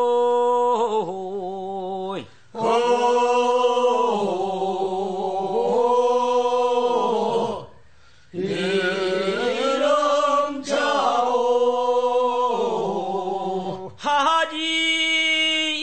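Korean bier-bearers' funeral song (sangyeo-sori) of Yeongcheon, unaccompanied male voices singing long, drawn-out phrases in a slow chant. The singing breaks briefly about two and a half, eight and fourteen seconds in.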